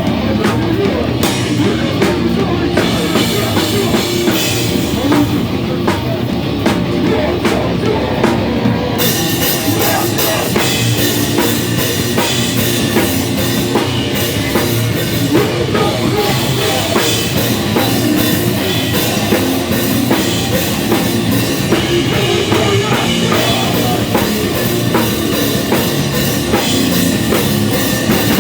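Live rock band playing loudly, driven by a drum kit; about nine seconds in, cymbals come in and the sound grows brighter.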